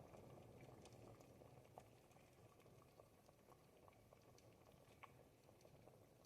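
A pot of ribollita, the thick Tuscan bread-and-vegetable soup, simmering: a quiet, steady bubbling with scattered small pops.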